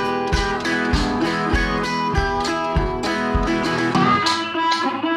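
Background music: acoustic guitar over a steady beat, about one beat every 0.6 seconds.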